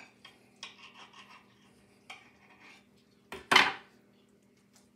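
Knife and fork scraping and clinking against a plate while cutting burnt ends, in several short strokes, with one louder scrape about three and a half seconds in.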